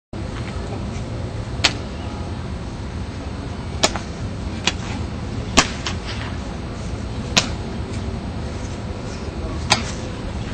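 Sharp slaps and claps from a pencak silat performer's hands, about seven in ten seconds at irregular intervals, over steady low background noise.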